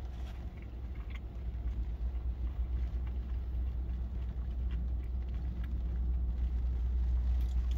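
Low, steady rumble of an idling car heard from inside the cabin, with a few faint chewing clicks over it.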